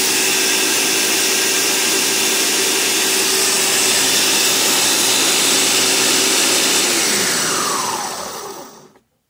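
Ninja countertop blender running at full speed, blending a thin mix of melted ice cream and milk. About seven seconds in the motor is switched off: its pitch falls as it winds down, and it stops about nine seconds in.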